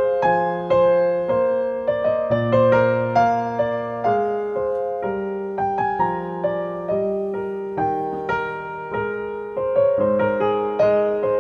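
Background music: a slow, gentle piano melody, each note struck and fading, over held low notes.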